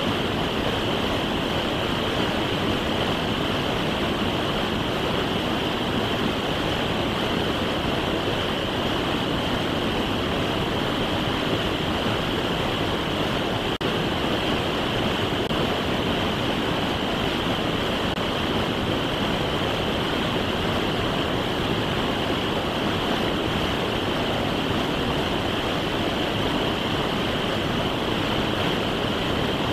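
Rushing whitewater of a fast, rocky forest creek running over boulders, a steady, unbroken roar of water.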